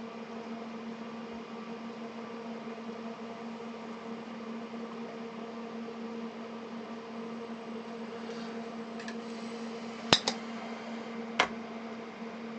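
Steady hum of a small motor or fan, with three sharp clicks about ten and eleven seconds in.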